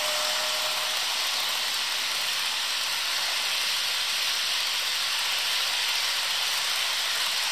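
HO scale model freight cars rolling by on the track: a steady hiss of metal wheels running on the rails. A faint motor whine ends about a second in.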